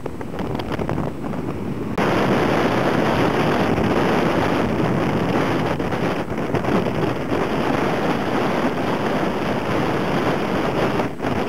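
Heavy storm surf of six- to seven-metre waves breaking close to shore, a steady rushing roar with strong wind buffeting the microphone. It grows louder and fuller about two seconds in.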